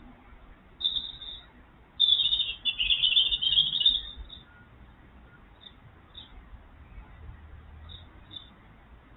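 Small songbird singing: a brief phrase about a second in, a fast run of high notes from about two to four seconds, then scattered single chirps.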